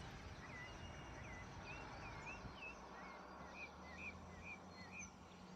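Faint bird calls: a run of short, repeated chirps over a soft, steady outdoor hiss.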